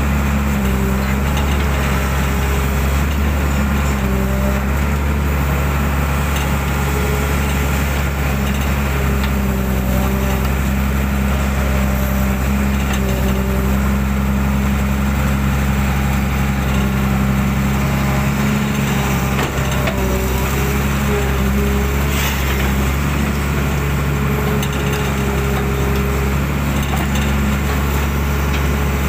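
Excavator's diesel engine running steadily, heard from the operator's seat, with a higher whine that comes and goes as the arm and bucket work through mud.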